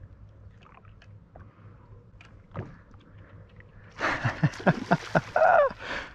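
A hooked smallmouth bass leaping and thrashing at the water's surface about four seconds in, a loud run of splashes lasting about two seconds, with a short pitched sound near the end.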